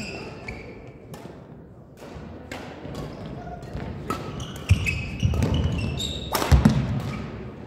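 Badminton doubles rally: a run of sharp racket hits on the shuttlecock, with shoes squeaking and feet thudding on the court floor. The heaviest thuds come in the second half.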